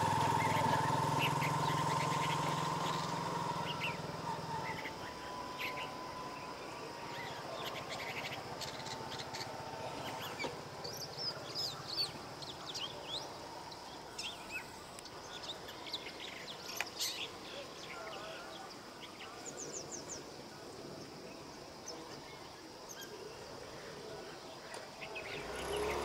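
Long-tailed shrike singing a quiet mimicking song of short, scattered chirps and quick down-slurred notes, imitating small prey birds such as the house sparrow. A passing vehicle's hum fades out over the first few seconds.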